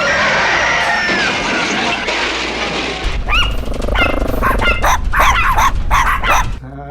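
A loud rushing noise for about three seconds, then a quick run of high-pitched Chihuahua yelps and barks, three dogs' recordings layered together, which stop shortly before the end.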